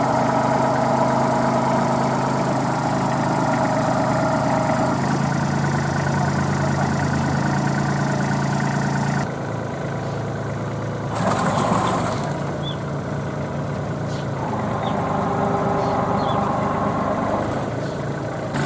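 Kubota B2441 compact tractor's three-cylinder diesel engine running steadily at low revs, its tone unchanging. About eleven seconds in comes a brief burst of rushing noise.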